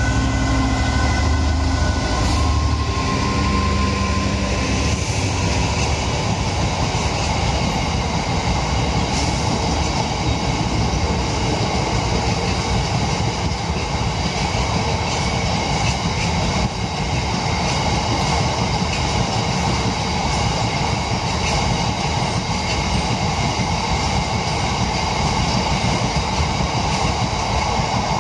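Class 66 diesel-electric freight locomotive passing close by, its EMD two-stroke diesel engine heard for the first two or three seconds. Then a long train of steel open box wagons rolls past with a steady rumble and clatter of wheels on the rails.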